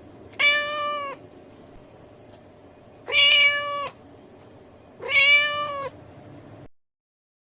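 A domestic cat meowing three times, each meow a little under a second long at a fairly level pitch, about two seconds apart.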